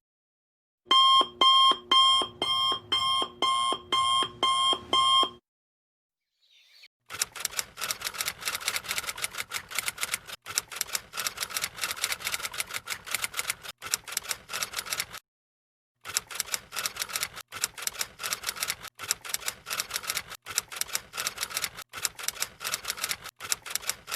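A digital alarm clock beeping in a steady pulse, about two beeps a second, for roughly four seconds. After a short silence comes rapid typewriter key clicking, fast and uneven, with one brief pause midway.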